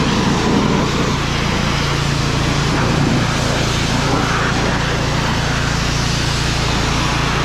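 Pressure washer running steadily, a constant motor hum under the hiss of its water jet spraying against the truck's body and chassis.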